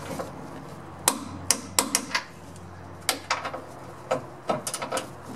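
Sharp metal clicks from a wrench ratchet, in short irregular strokes, as the front bolt of a lower control arm is tightened and torqued to 81 ft-lb. The clicks start about a second in and come faster near the end.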